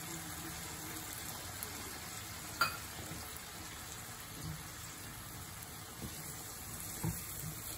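Chicken liver masala sizzling in oil and a little added water in a nonstick frying pan, stirred with a silicone spatula. A sharp click comes about two and a half seconds in, and a soft knock comes near the end.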